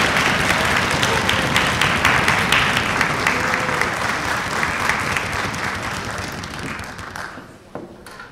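Audience applauding, the clapping dying away over the last few seconds, followed by a few scattered knocks.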